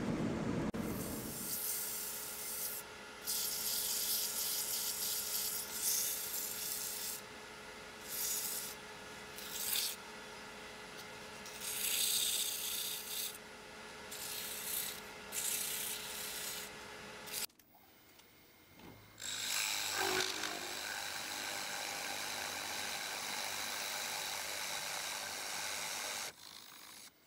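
Wood lathe running with a steady motor hum while a hand-held pad is rubbed against the spinning wood in repeated hissing strokes. After a sudden break, a gouge cuts into the spinning blank, throwing shavings, and stops abruptly near the end.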